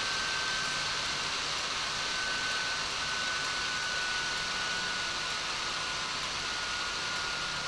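HP G62 laptop's cooling fan running fast just after power-on: a steady rush of air with a thin whine that eases slightly lower in pitch.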